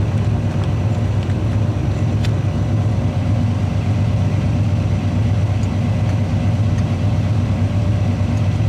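1981 Chevrolet Silverado's Quadrajet-carbureted engine idling steadily with an even low pulse, with one faint click about two seconds in.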